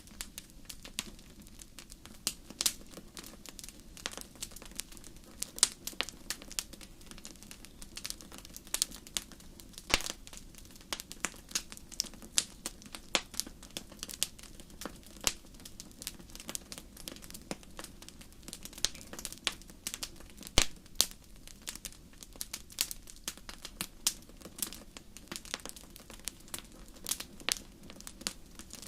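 Wood fire burning in a fireplace: irregular sharp crackles and pops, several a second, over a low steady rush.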